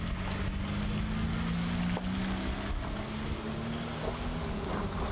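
Wind buffeting the microphone over a steady engine drone, which stops about four seconds in.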